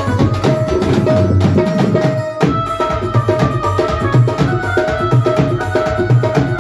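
Live Indian devotional instrumental music: a fast hand-drum rhythm under a sustained melody line. The playing breaks off for a moment about two seconds in, then comes straight back in.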